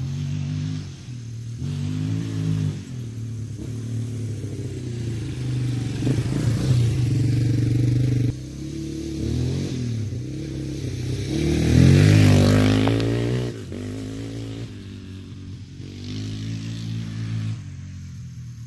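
Yamaha Warrior 350 ATV's single-cylinder four-stroke engine being ridden around, its note rising and falling again and again as it accelerates and shifts, loudest about twelve seconds in as it passes nearest, then fading as it moves away. The engine is freshly tuned up with a new carburettor, plug and filters.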